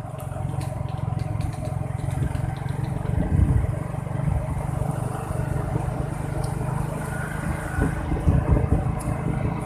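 A motor vehicle's engine running steadily as a low hum, swelling briefly about three seconds in and again near the end.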